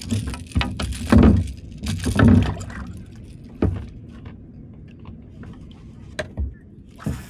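Handling noise from fishing tackle in a kayak: a few dull knocks against the boat in the first couple of seconds, then scattered light clicks and rattles.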